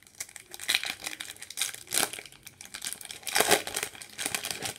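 Foil booster-pack wrapper torn open by hand, crinkling in a string of irregular rustles, the loudest about halfway through and again about three quarters of the way through.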